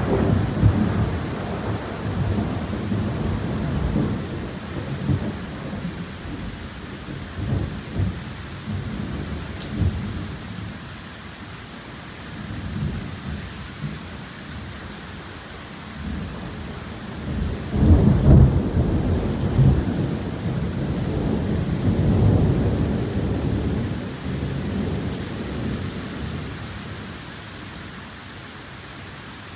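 Heavy tropical downpour hissing steadily through a thunderstorm. Rolling thunder fades over the first dozen seconds, then a new loud peal breaks about 18 seconds in and rumbles on before dying away near the end.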